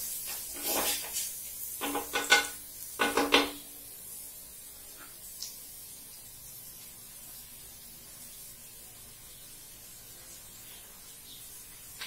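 A few clattering knocks of kitchen utensils and pots in the first three or four seconds, then only a faint steady hiss.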